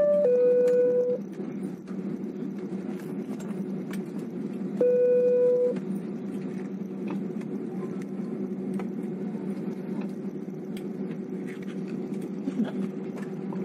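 Steady low hum of a jet airliner's cabin while it taxis after landing. Loud held electronic tones cut across it: a note stepping down in pitch and ending about a second in, and another single note about five seconds in.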